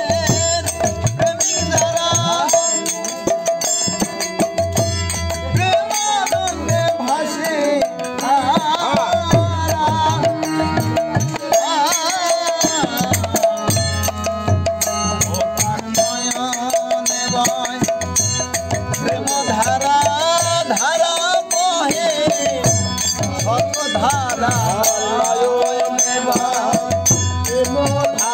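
Bengali Hindu devotional kirtan: a harmonium holds a steady note while a khol drum beats and small brass hand cymbals (mandira) clash in a quick, even rhythm. Men's voices sing over it in stretches.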